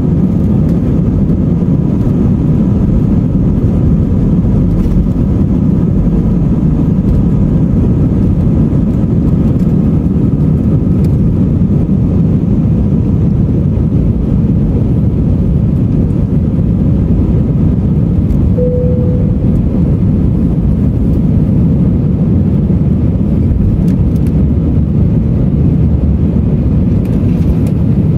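Airbus A319's two IAE V2524-A5 turbofan engines at takeoff thrust, heard inside the cabin as a loud, steady rush through the takeoff roll, liftoff and initial climb. A brief tone sounds about two-thirds of the way through.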